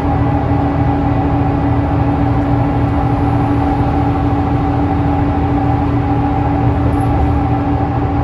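Scania L94UA articulated bus heard from inside the cabin while it cruises: a steady drone of the diesel engine and driveline with a steady whine, over low tyre and road rumble.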